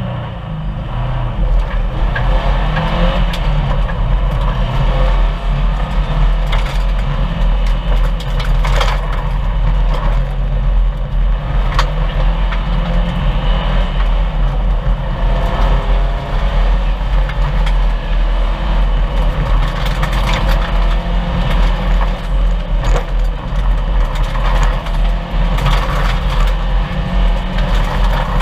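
1998 Subaru Impreza 2.5 RS rally car at stage speed: its flat-four engine runs hard under load with revs rising and falling, while gravel clatters and cracks against the underbody throughout.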